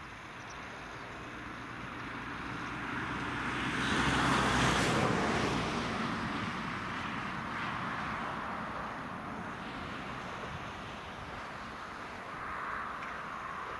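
New Holland tractor ploughing with a Lemken plough, passing close by: the engine hum and the noise of the plough grow to their loudest about four to five seconds in, then slowly fade as it moves away.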